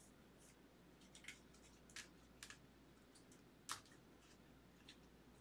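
Near silence with a few faint, scattered clicks and ticks of trading cards being handled and set down on a mat, the clearest about three quarters of the way through.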